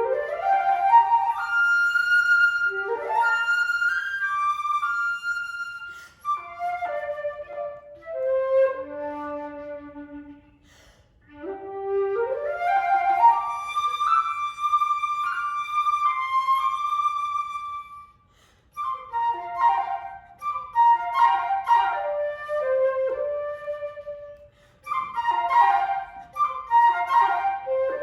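Solo flute playing a classical-style melody of quick rising runs and held notes, with short breathing pauses about ten, eighteen and twenty-four seconds in.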